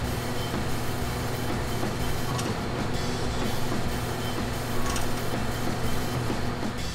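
Pit Boss 5 Series vertical pellet smoker running in prime mode, its auger motor giving a steady hum as it feeds wood pellets into the fire pot.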